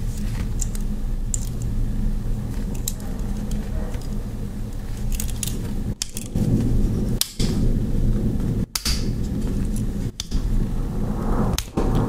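A steady low background rumble with scattered light metallic clicks from a Swiss Army knife's tools being handled, broken by a few brief dropouts.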